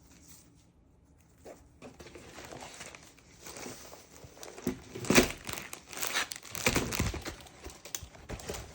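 Packaging of a diamond painting kit being handled and opened, crinkling and rustling irregularly, starting faint about a second and a half in and getting louder and busier partway through.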